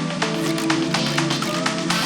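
Background music with a quick, steady pulse of short notes over sustained tones.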